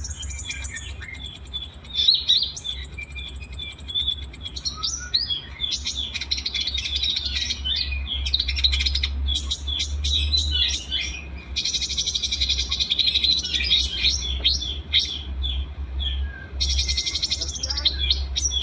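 Recorded songs of several small songbirds layered together: a dense run of high-pitched chirps and rapid trills, with longer buzzy trills held for a second or more several times. A steady low hum runs underneath.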